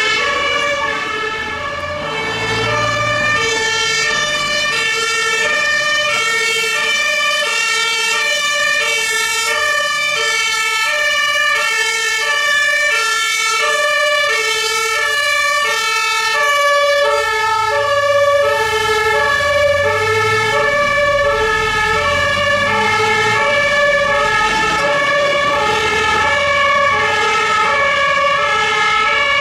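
Several German two-tone Martinshorn sirens on emergency vehicles sounding together out of step, each alternating steadily between a high and a low note. Low engine rumble swells as vehicles pass, about two seconds in and again around the middle.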